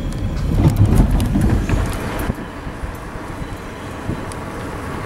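Low rumble of a car on the move, heard from inside the cabin, loudest in the first two seconds and then steadier and quieter. A few sharp clicks and knocks from the camera being handled come early in the rumble.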